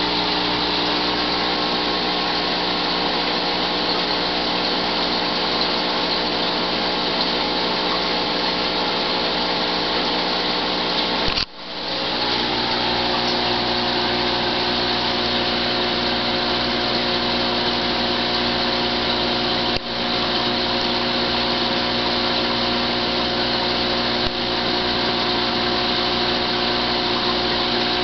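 Steady electric hum of a small motor, with a buzzing stack of overtones. It drops out briefly about eleven seconds in, then comes back with a slightly different tone.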